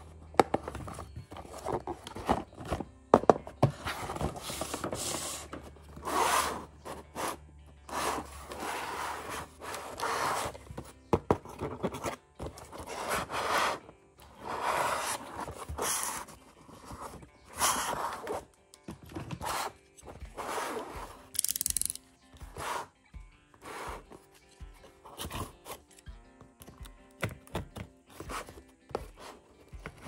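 Cardboard packaging being handled, rubbed and scraped, in uneven swells with a few sharp knocks.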